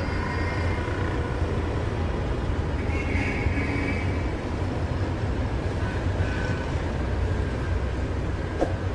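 Steady low road rumble of a moving vehicle, heard from on board.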